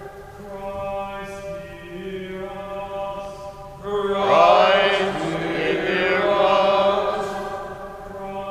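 Men's voices singing a slow liturgical chant in long held notes, growing louder about four seconds in.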